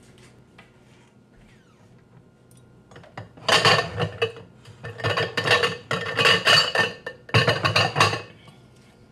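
Close handling noise: after a few seconds of low background with small clicks, four loud bursts of rustling and knocking come over about five seconds.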